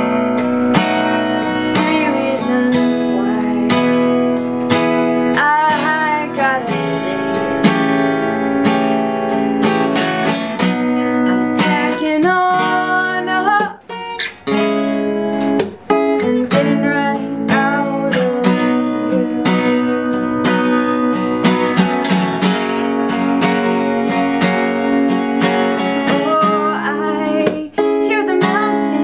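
Acoustic guitar strummed in a steady rhythm, with a woman singing over it at times; the strumming breaks off briefly twice near the middle.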